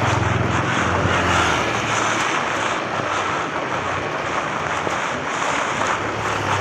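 Heavy rain pouring steadily, heard from under an umbrella, with a vehicle engine's low hum in the first second or so.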